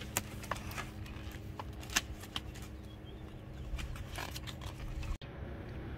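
Reflective panels of a foldable solar panel cooker being handled and folded: scattered light clicks and rustles, over a faint steady low hum.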